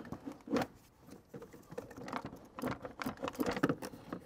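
Irregular clicks, knocks and rubbing of the plastic air box lid and rubber intake boot being worked loose and lifted off a Porsche 996 engine, busiest in the second half.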